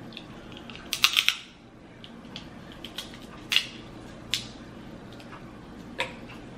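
Close-miked eating sounds from a seafood meal: a quick run of four sharp crackling clicks about a second in, then three single sharp clicks spaced over the next few seconds.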